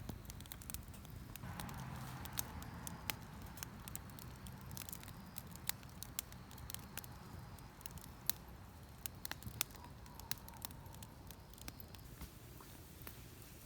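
Firewood burning in a campfire, crackling with many sharp, irregular pops and snaps over a low steady rumble.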